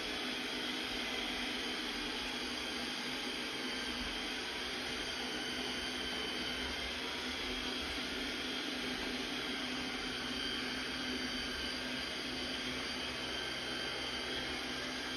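iHome AutoVac Nova robot vacuum running steadily, its suction fan and motor giving a constant whir with a steady whine.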